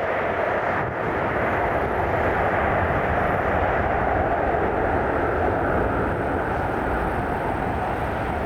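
Steady jet-engine rush from an arriving Boeing 737-800 airliner's CFM56 turbofans, even and unbroken.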